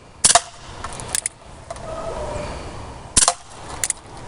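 Two sharp pops from a Colt Single Action Army CO2 BB revolver being fired, about three seconds apart, each followed under a second later by a couple of lighter clicks.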